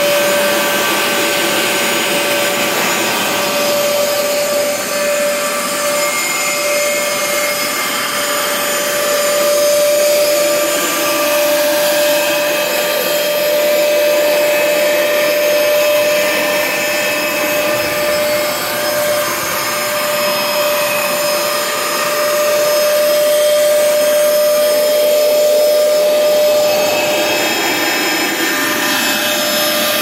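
Hoover Spin Scrub Max Extract 77 carpet cleaner's suction motor running steadily with a constant whine, sucking water out of wet carpet.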